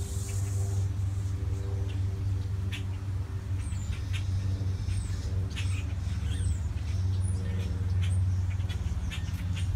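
A steady low mechanical hum, like a motor running, with short high bird chirps and a few light clicks over it.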